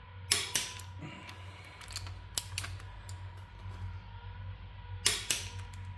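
Click-type torque wrench clicking off as cylinder head bolts reach 65 ft-lb on the final tightening pass, with short ratchet clicks between. The sharp clicks come in close pairs, one about a third of a second in and one near the end, over a steady low hum.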